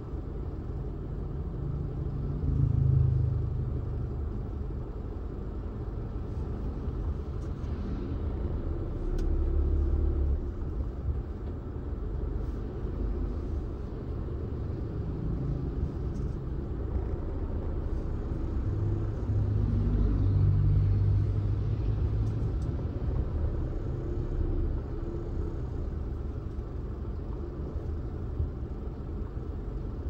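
Car driving on a road: a steady low rumble of engine and tyre noise that swells louder three times, about 3 seconds in, around 10 seconds, and for a couple of seconds around 20 seconds.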